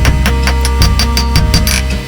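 Background music with a steady beat, about four strikes a second, over held bass notes.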